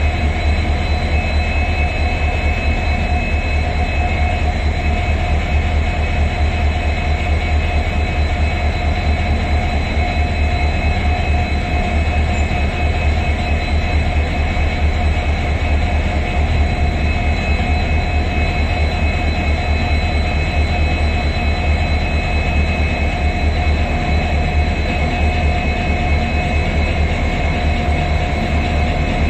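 Humsafar Express LHB coaches rolling past a platform: a steady rumble of wheels on rail, with high whining tones held over it.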